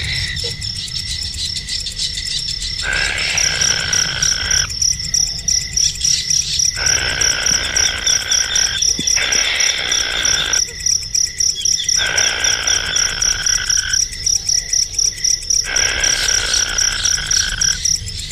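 A high, very fast-pulsed insect trill, like a cricket, runs steadily throughout. Over it, bursts of rushing noise switch on and off every one to two seconds.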